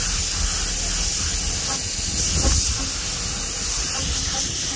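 Compressed-air paint spray gun hissing steadily while spraying paint, with a low rumble underneath.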